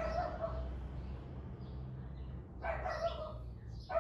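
A dog barking: short barks at the start and again about three seconds in, over a low steady hum.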